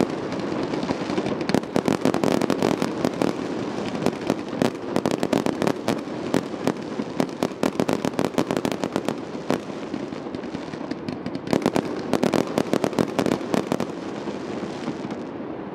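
Fireworks display: rapid crackling pops and bangs in dense runs with short gaps between them, thinning out near the end.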